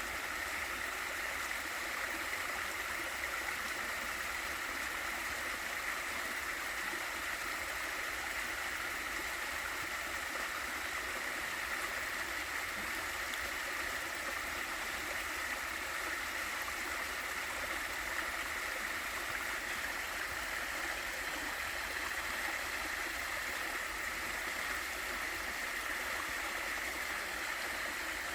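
Water of a small waterfall in a mountain stream, rushing and splashing steadily without a break.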